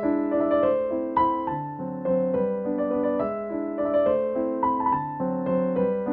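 Background music: a piano tune, note following note at an even pace over held lower notes.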